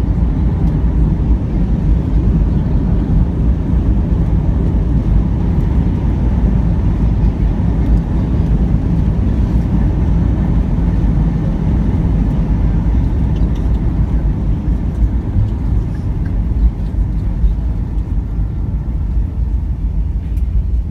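Cabin noise of a Boeing 737 airliner rolling out on the runway just after touchdown, with its ground spoilers raised: a loud, steady low rumble of the wheels and engines that eases slightly as the aircraft slows near the end.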